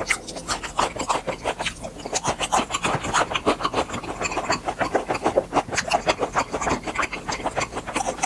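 Close-miked chewing of grilled beef intestines: a quick, steady run of chewing sounds.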